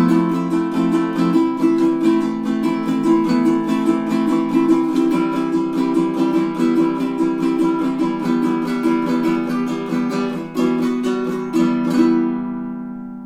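Pono solid acacia baritone ukulele, nylon-strung in DGBE tuning, strummed rapidly through a chord progression. A final chord about twelve seconds in is left to ring out and fade.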